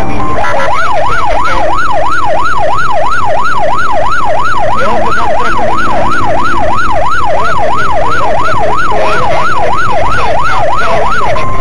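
Police siren in a fast yelp, its pitch rising and falling about two and a half times a second, over a steady rush of noise. It starts about half a second in and cuts off just before the end.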